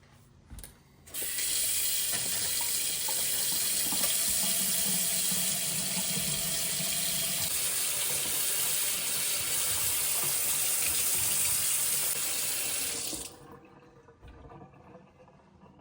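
Water running hard from a freshly repaired Delta faucet, turned on about a second in and shut off sharply near the end, a steady rush of about twelve seconds: the repaired valve being run.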